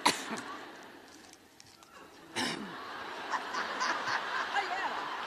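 One sharp cough into the speaker's microphone at the start, then an audience laughing and cheering, swelling about two and a half seconds in and carrying on.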